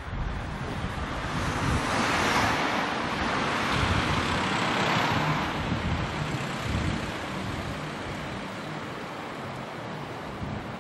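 A road vehicle passing along the street, its noise swelling about a second in and fading away after about five seconds, over a low rumble of wind on the microphone.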